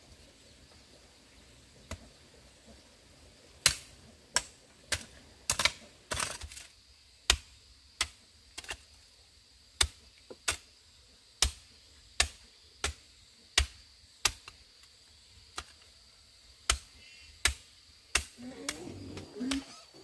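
A series of sharp, short knocks at an uneven pace, roughly one or two a second, starting a few seconds in and pausing briefly near the three-quarter mark.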